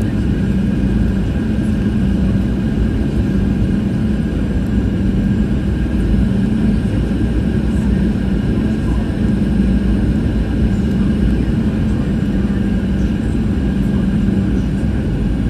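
Cabin noise inside a Boeing 737-700 in flight on approach: a steady rush of jet engine and airflow noise with a constant low hum.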